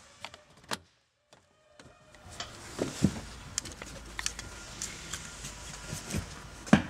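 Scattered sharp clicks and knocks of car interior trim being pressed back into place: the rear side panel's plastic clips seating, then the rear seat being worked back in.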